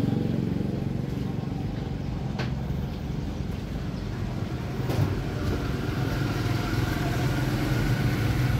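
Road traffic passing close by: low engine noise of motor vehicles that eases off after the start and swells again near the end, with two sharp clicks in between.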